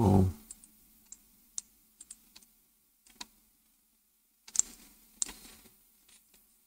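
Scattered clicks of a computer mouse and keyboard, irregular, a few a second, with a louder cluster about four and a half seconds in and another just after five seconds.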